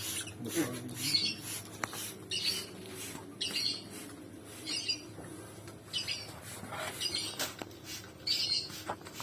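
Pet lovebirds chirping and squawking, short shrill calls repeating about once a second.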